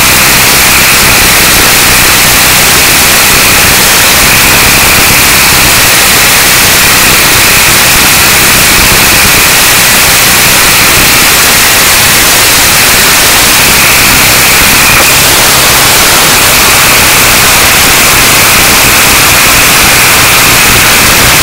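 CX2 coaxial RC helicopter's electric motors and rotors heard from a microphone riding on the helicopter: a loud, steady hiss with a whine running under it, overloading the small microphone.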